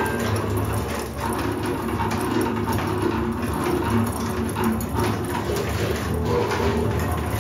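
Freely improvised double bass and drums played with extended techniques: a dense, continuous rubbing and scraping texture over a low drone, with shifting held pitches and no clear beats.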